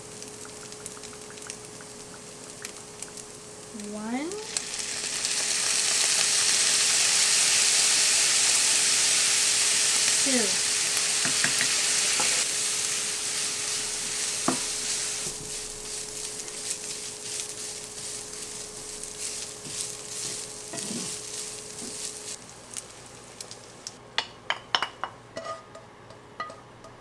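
Ground meat and diced onion frying in a nonstick pan. About four seconds in, the sizzle swells sharply as a dark sauce hits the hot pan, stays loud for several seconds while a wooden spoon stirs it, and then slowly dies down. A few sharp clicks near the end.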